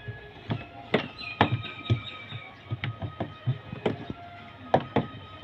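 A series of irregular sharp knocks and clicks, about ten in five seconds, against faint steady tones in the background.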